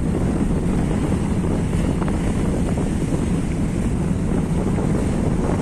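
Steady wind buffeting the microphone, with the rush of rough sea and breaking waves around the vessel beneath it.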